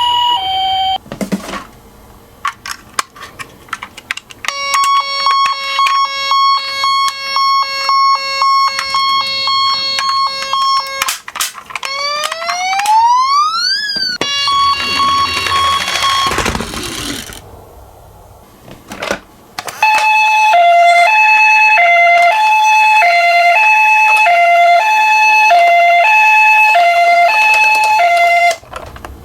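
Toy ambulance minicar's electronic siren sounds: a steady beeping tone, a rising wail about halfway through, then a two-tone hi-lo ambulance siren over the last third. Clicks and rattles of the small toy cars come in between, mostly early on and just after the wail.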